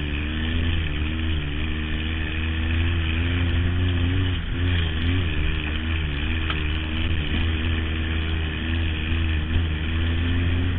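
Dune buggy engine running under way, heard from inside the open cage, its pitch rising and falling as the throttle changes.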